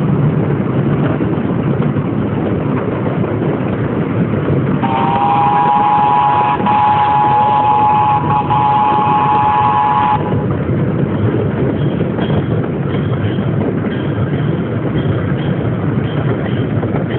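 Miniature park train ride running with a steady rumble of the open cars; about five seconds in, the train's horn sounds one steady two-tone note, held for about five seconds before it cuts off.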